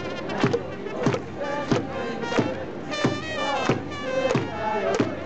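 A Japanese baseball cheering section playing a team cheer song: trumpets over a steady drum beat of about three hits every two seconds, with fans' voices joining in.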